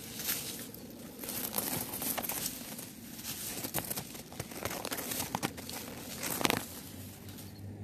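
Grass stems and leaves rustling and crackling right against the phone microphone as a hand moves through them, in irregular crinkly bursts with a louder crackle about six and a half seconds in.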